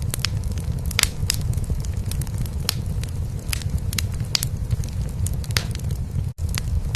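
A cat purring in a steady low rumble, mixed with the irregular crackles and pops of a wood fire in a fireplace. The sound cuts out for an instant near the end.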